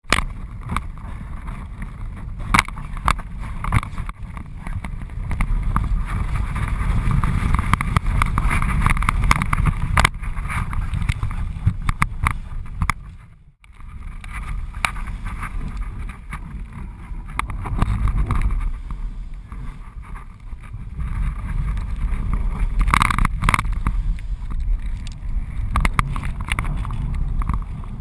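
Wind buffeting a GoPro camera mounted on a kitesurfing kite's strut: a steady low rumble with frequent short snaps and knocks. The sound drops out briefly about halfway through.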